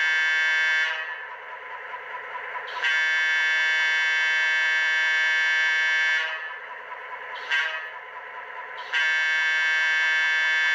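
ESU LokSound decoder in an HO scale Atlas FM H16-44 model diesel locomotive sounding its air horn in the grade-crossing pattern. A long blast ends about a second in, a second long blast runs from about 3 to 6 seconds, a short toot follows, and another long blast starts about 9 seconds in. The decoder's steady engine sound runs underneath throughout.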